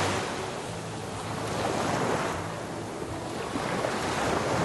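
Rushing, surging water-and-wind sound effect of an animated logo intro, swelling about two seconds in and again near the end.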